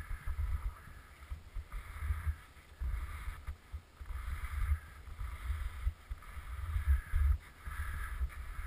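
Wind buffeting the microphone in uneven gusts: a low rumble that surges and drops every second or so, with a hiss rising and falling along with it.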